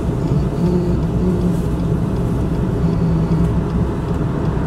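Pickup truck engine idling steadily, a low even rumble heard from inside the cab.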